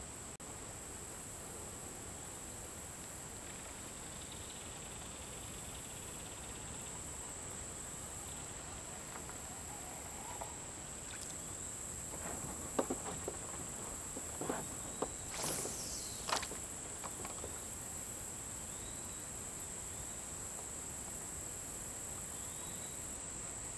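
Steady, high-pitched insect chorus droning without a break. A few scattered clicks and knocks come in the middle.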